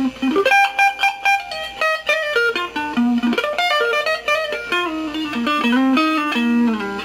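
Clean electric guitar, a yellow Sqoe Ranger Stratocaster-style, playing a quick single-note lead line through a Kokko Mini Compressor pedal, with notes changing several times a second and a lower note held near the end.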